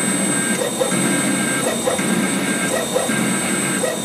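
The spindle of a home-built CNC mill whines steadily while a 4.25 mm solid-carbide drill bores into steel at 5000 rpm. The cutting noise swells and eases in a cycle about once a second.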